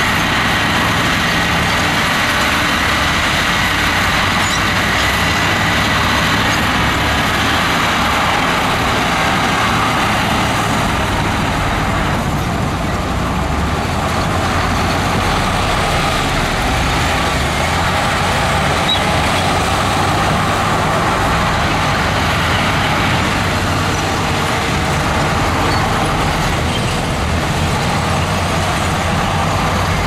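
Heavy diesel construction machinery, a bulldozer and a dump truck, running steadily.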